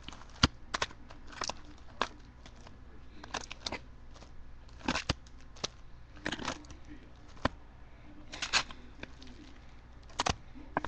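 Trading card packs being pulled out of a cardboard display box: irregular rustling, crinkling and sharp taps of cardboard and pack wrappers being handled.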